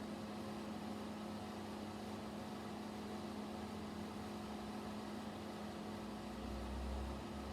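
Steady low electrical hum over a soft hiss, with a deep rumble swelling briefly near the end.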